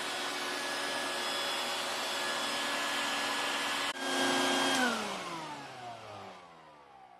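Stinger shop vac running steadily with a turbo brush on its hose. About five seconds in it is switched off, and the motor's whine glides down as it spins to a stop.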